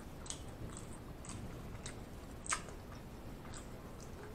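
A person chewing food close to the microphone: soft, wet mouth clicks and smacks about every half second, with one louder smack about two and a half seconds in.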